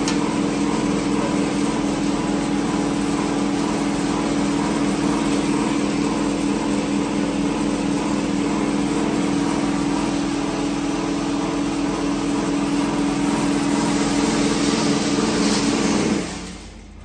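CNC high-speed wire straightening machine running, feeding wire through its straightening rollers: a steady mechanical hum with a hissing whir that cuts off suddenly near the end as the machine stops.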